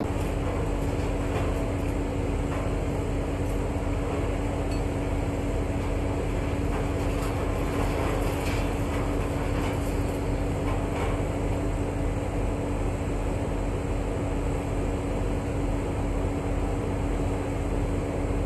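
Heavy diesel construction machinery running at a steady drone with a constant hum, and a few faint knocks about halfway through.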